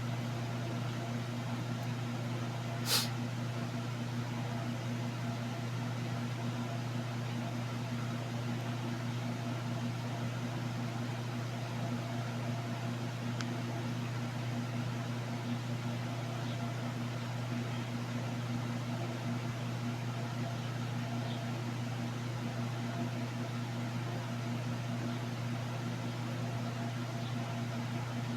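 Steady low electrical hum, with one sharp click about three seconds in.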